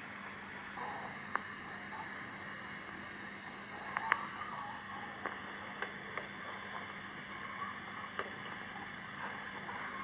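Steady insect drone, with a handful of short sharp clicks scattered through it and a faint steady low hum underneath.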